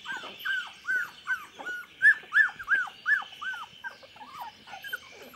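Chocolate Labrador puppies, about three and a half weeks old, whimpering and squealing while feeding at their mother: a quick run of short high cries, each dropping in pitch, about three a second, loudest around the middle.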